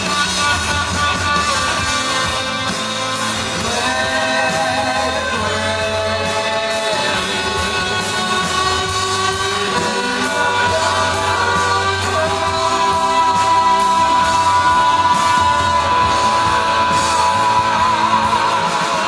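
Live rock band playing amplified in a hall: electric guitars, bass and drums, with a voice singing long, wavering held notes.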